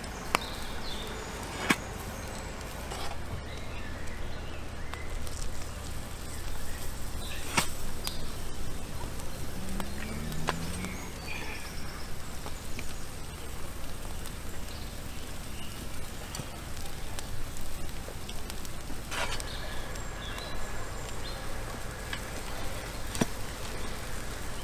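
Wood fire crackling, with a few sharp single pops scattered through a steady low noise.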